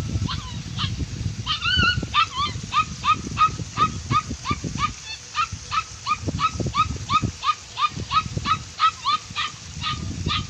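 An animal calling over and over in short, high, upturned calls, about three a second, with a low rumble underneath.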